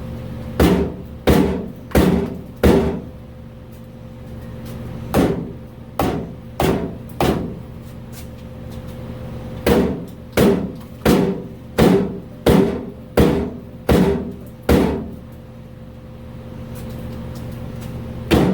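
Hammer blows on the car's rear bumper, about sixteen sharp strikes in three runs, roughly one every 0.7 s. They drive the bumper in, collapsing the drilled-out bumper shock to tuck the bumper closer to the body.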